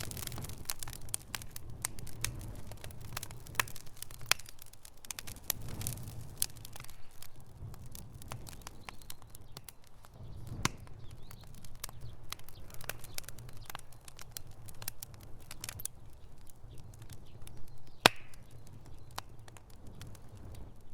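Campfire crackling, with frequent irregular sharp pops over a low steady rumble, and one especially loud pop near the end.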